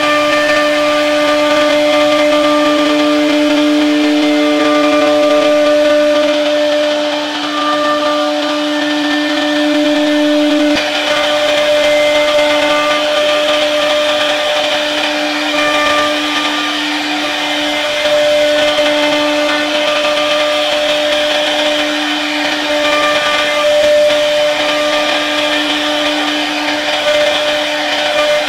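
CNC router spindle carving a wooden door panel: a steady high whine from the spindle over the rasp of the bit cutting wood.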